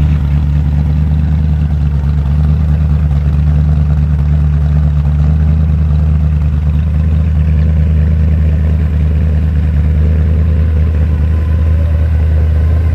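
Hot-rod car engine idling with a deep, steady rumble.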